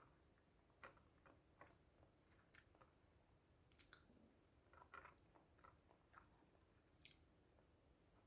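Faint close-up chewing: soft, irregular mouth clicks and small crunches, with a few sharper ones about one, four, five and seven seconds in.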